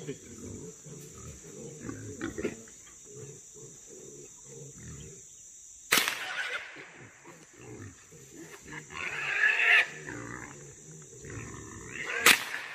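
Two rifle shots about six seconds apart, the second the louder, fired at feral hogs in a corral trap. Between the shots the trapped hogs grunt continually, with a loud squeal about nine seconds in.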